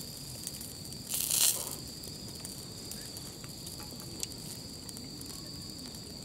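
Night insects trilling steadily in one high pitch, with a brief, loud hiss about a second in.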